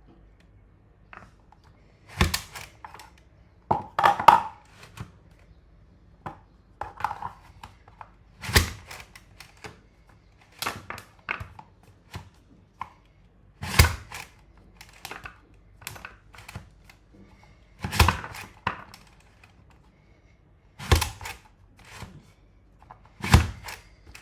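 Safe Slice plastic push-down mandoline slicing a potato. About seven sharp thunks come a few seconds apart as the pusher is driven down and the blade cuts through, with lighter plastic clicks and rattles between strokes.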